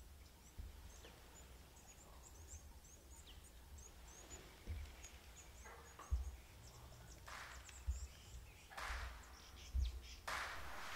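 Faint outdoor bush ambience: small birds chirping in quick high notes during the first few seconds over a low, steady rumble. Several short, louder bursts of hiss-like noise come in the second half.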